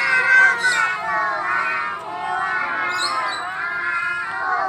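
A group of young children calling out together in high, sing-song voices, several voices overlapping.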